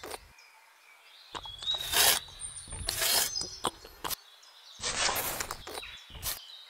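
Small hand trowel scooping wet cement mortar from a metal dish and scraping it along a sandy board, a few short scrapes about a second apart. Birds chirp in the background.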